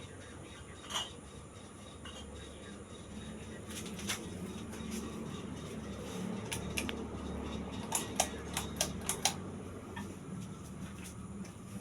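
Uchida ceiling fan running with a steady low hum, with scattered sharp clicks and a quick run of about five clicks some eight to nine seconds in.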